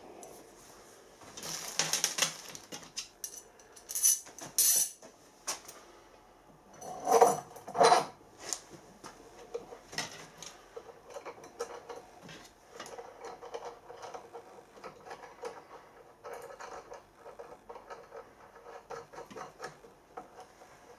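Steel tools, nuts and a steel rod clinking and clanking on a metal workbench as nuts are fitted and nipped up on the rod through a steam engine's base. Several loud clanks come in the first eight seconds, then lighter, quicker ticks and scrapes.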